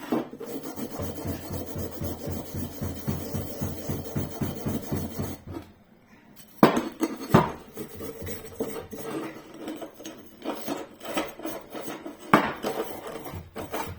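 Small metal wire brush scrubbing a pump's intake impeller in rapid back-and-forth strokes, with a short pause about six seconds in. A few sharp metallic knocks come around seven seconds and again near twelve seconds as the scrubbing resumes.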